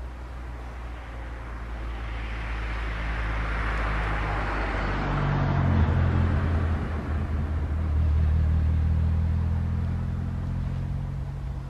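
Diesel-electric locomotive approaching at low speed, its engine drone growing steadily louder and peaking past the middle.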